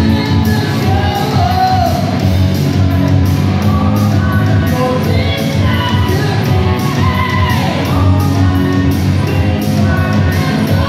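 Live hard rock band playing loud, with electric guitars and a steady drum beat under a male lead singer singing and shouting through the PA, heard from the audience in a large room.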